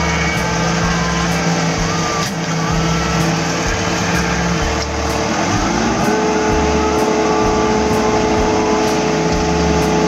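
Hydraulic excavator's engine and hydraulics running, heard from inside the cab, with a steady whine that sags about five seconds in and climbs back up a second later as the load on the machine changes.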